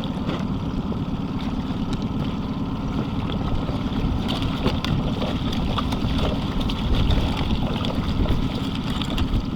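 Steady low rumble of wind buffeting the microphone aboard a small boat on open water.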